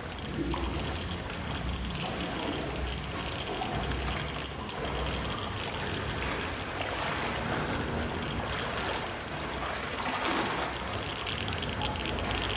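Water splashing and sloshing as people wade through a flooded tunnel, over a steady low rumble.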